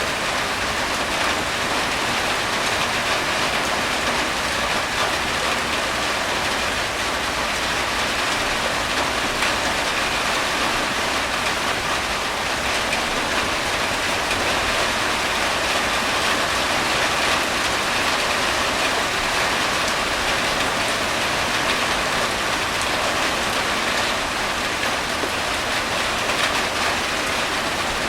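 Heavy rain falling steadily, a dense even hiss of drops on surfaces with no thunder.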